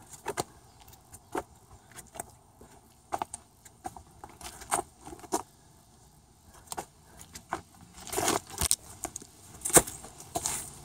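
Irregular knocks, scuffs and rustles of a person crawling through a play tunnel while carrying a camera, getting louder and busier near the end.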